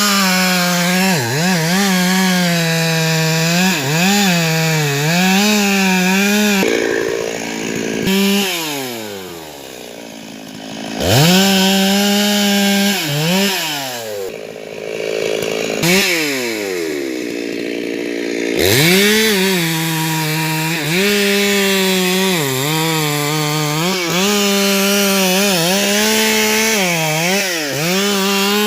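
Stihl 382 two-stroke chainsaw cutting through a tree trunk at full throttle, its engine pitch dipping and recovering as the chain loads in the wood. Twice, about a quarter of the way in and again just past halfway, the engine drops off toward idle and then revs back up into the cut.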